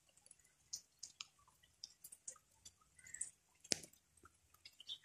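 Water dripping: faint, irregular ticks and taps of falling drops, a few each second, with one louder tap about three-quarters of the way in.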